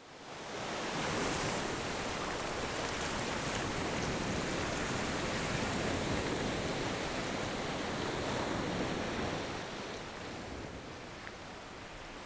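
A steady rushing noise, like wind or moving water, that swells in over about the first second and eases off a little near the end.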